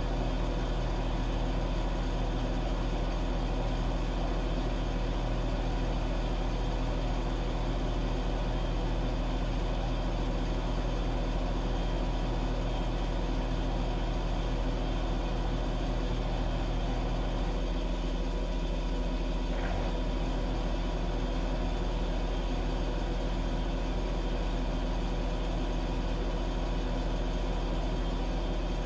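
Washing machine running with a steady low mechanical hum. A little past halfway the hum shifts slightly, with a faint tick shortly after.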